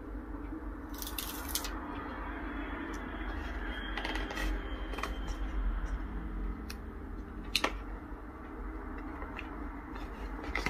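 Cardboard test-kit box being folded and handled, with paper rustles and a sharp click about three quarters of the way in, over a steady low room hum.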